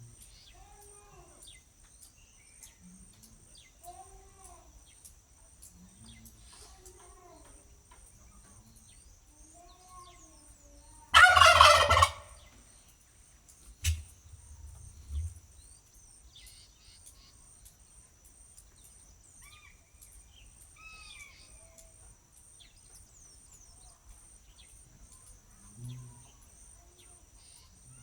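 Turkey gobbling once, a loud rapid rattling call about eleven seconds in, between soft repeated arching bird call notes and a few higher chirps. A steady high-pitched insect buzz with regular ticks runs underneath.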